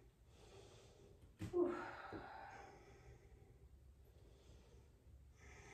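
A woman's audible breathing: a short voiced sigh on the exhale about a second and a half in, then a soft breath near the end.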